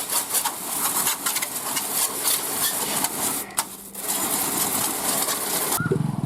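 Hissing water spray with crackling spatter, most likely a pressure-washer jet hitting a bare motorcycle frame, dipping briefly in the middle. Near the end it cuts off sharply and a low, evenly pulsing motorcycle engine idle takes over.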